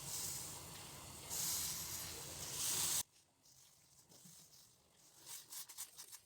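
Saucepan of kehwa boiling on a stove, a hiss that swells and fades, cutting off abruptly about three seconds in. After that it is near quiet with a few faint clicks.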